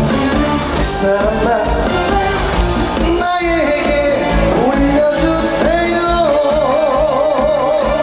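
Live trot song played by a band with vocals, over a steady beat. In the second half the melody settles on one long held note with wide vibrato.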